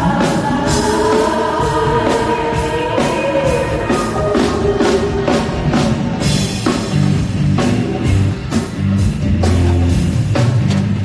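Live pop band with a woman singing through the PA: a sung melody over the first few seconds, then drums and bass carrying a steady beat.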